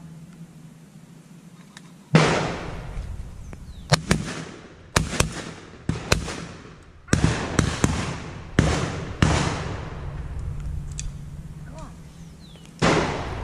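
Shotguns firing at driven pheasants: about a dozen shots in quick, irregular succession, some doubled close together, from about two seconds in to about nine seconds in, then one more shot near the end. Each shot has a trailing echo.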